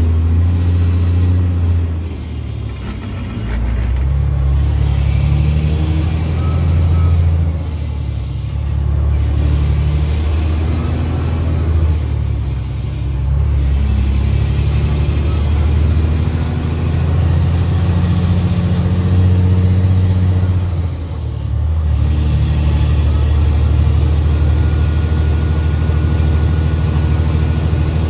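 Peterbilt semi truck's diesel engine pulling under load through four gear changes. The revs climb between shifts and drop briefly at each one, and a high whistle rises and falls with the revs.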